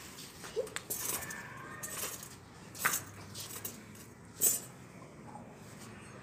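Metal fire tongs clinking and scraping against smouldering embers and fuel lumps, a few short metallic clinks, the two loudest about three and four and a half seconds in.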